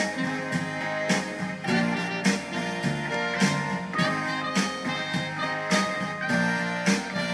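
Yamaha Genos arranger keyboard playing an instrumental tune, a melody over chords with a steady beat.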